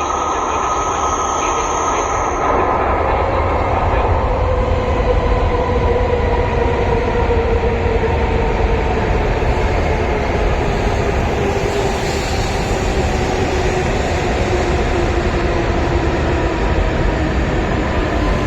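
Hokuriku Shinkansen train pulling in to the platform: a loud steady rumble of wheels and running gear, with motor tones gliding slowly downward as the train brakes to a stop.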